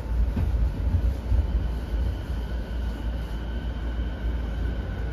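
Inside a JR 209 series 500 electric commuter car: a steady low rumble from the running gear. A little past halfway, the traction motors' thin whine comes in and begins to climb in pitch as the train accelerates away from the station.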